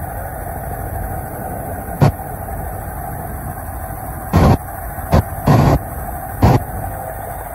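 Helicopter cabin noise: a steady drone of the engine and rotor, broken by about five sudden loud thumps or blasts on the microphone, two of them lasting a few tenths of a second.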